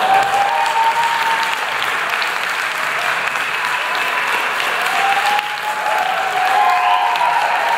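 Audience applauding loudly after an a cappella song, with a few drawn-out whoops on top of the clapping.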